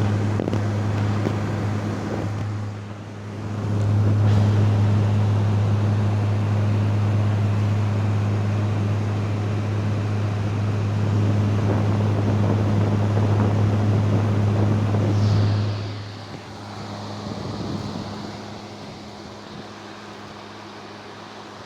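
2023 General Electric (Midea) 5,000 BTU window air conditioner running with a strong steady low hum over rushing air; about 16 seconds in the hum drops away, leaving the fan running on high, quieter, with a faint high whine. The drop fits the compressor shutting off, leaving fan only.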